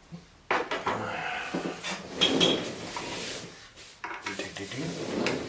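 Clattering and rubbing of hard parts being handled on a workbench: a sudden knock about half a second in, then rattles and scraping, pausing briefly near the end before more handling.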